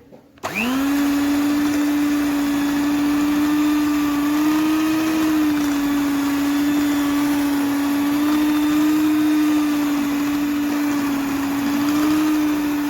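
Electric hand mixer switching on about half a second in, spinning up quickly to a steady whine as it beats a pasta flora dough. The pitch wavers slightly as the beaters work the dough.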